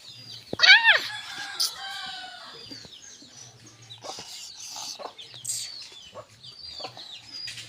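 A rooster crows once, a loud rising-and-falling start about half a second in, trailing into a long, fainter held note. Short high bird chirps go on around it.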